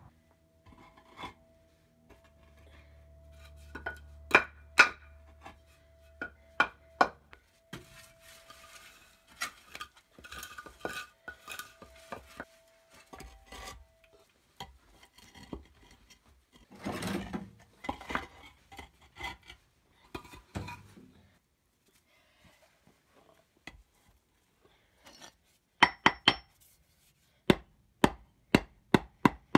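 Concrete pavers and a wooden board being handled and set by hand: scattered clinks and knocks of block on block, a stretch of scraping midway, and a quick series of sharp knocks near the end.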